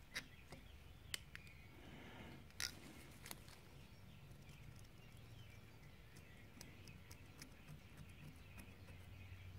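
Faint scraping and a few light clicks of a hand tool picking old gasket material off an aluminium engine crankcase face.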